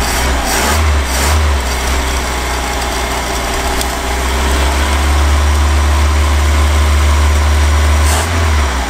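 Boat engine idling with a steady low drone, a little uneven in the first second or so.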